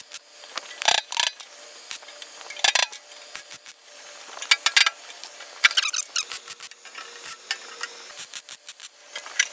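MIG welder tack-welding thin 18-gauge sheet metal: short bursts of arc crackle, one tack after another with brief pauses in between.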